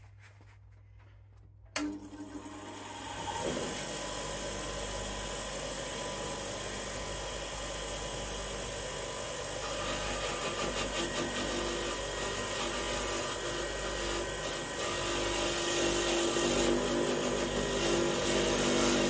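Bench grinder switched on about two seconds in, its motor spinning up to a steady run. From about halfway a bolt is held against the spinning wire wheel brush, a rough scratching over the motor that grows louder near the end, cleaning rust and dirt off the original bolt.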